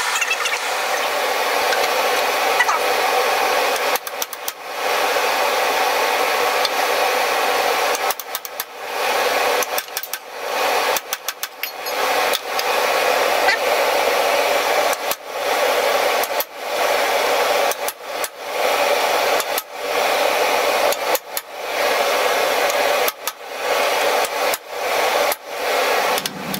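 Electric forge blower running with a steady whooshing hum, broken again and again by short gaps.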